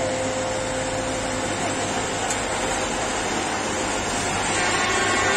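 Railway track maintenance machine rolling slowly past, its engine giving a steady low hum over a wide rushing noise. A higher thin ringing tone joins near the end.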